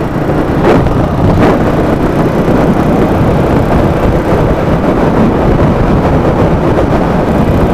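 Yamaha Virago V-twin motorcycle running steadily at highway speed, its engine heard under a dense rush of wind and road noise.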